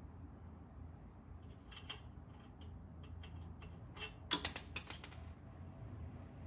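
A few light metallic clicks, then about four and a half seconds in a quick cluster of sharp metal clicks and one loud clank: hand tools and bolts being handled on the car's suspension, over a faint low hum.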